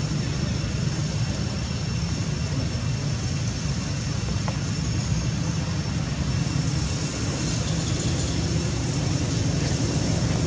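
Steady low rumble of outdoor background noise, even and unbroken, with faint steady high tones above it.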